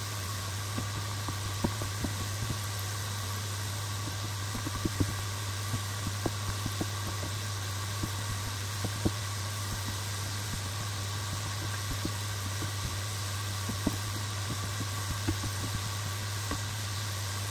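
Small cottage-cheese doughnut balls deep-frying in hot oil: a steady sizzle with scattered small pops and clicks, over a steady low hum.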